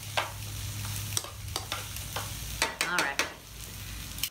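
Chopped peppers sizzling in oil in a frying pan while metal tongs stir them, with sharp clicks and scrapes of the tongs against the pan. A steady low hum runs underneath.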